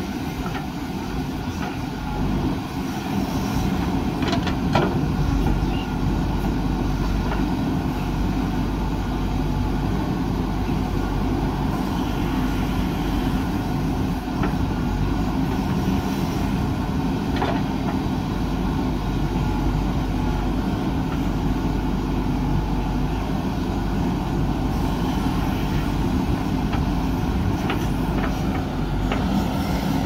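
JCB backhoe loader's diesel engine running steadily under hydraulic load as the backhoe digs soil and swings it into a tipper truck, with a few short metallic clanks from the bucket and arm.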